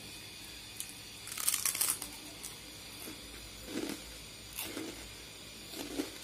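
A crisp fried flower pitha (Bengali rice-flour rosette) being bitten and chewed: one crackly crunch about a second and a half in, then a few quieter chewing crunches.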